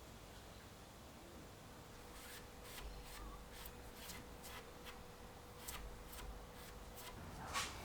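Faint, quick, irregular rubbing strokes across a shellacked wood tabletop, starting about two seconds in, with one louder stroke near the end: feathering in and blending grain-painted shellac repairs.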